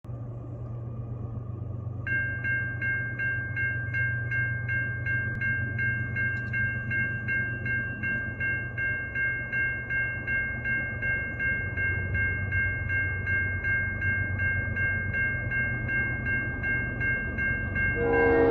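Railroad grade-crossing warning bell ringing evenly at about three strokes a second, starting about two seconds in, over a low rumble. Near the end a locomotive air horn starts to blow.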